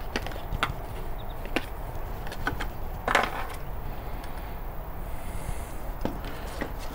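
Handling noise as a BBQ blower fan with a metal mounting bracket is lifted out of its cardboard box: scattered light clicks and knocks of plastic and metal, cardboard rustling, and a louder rustle about three seconds in.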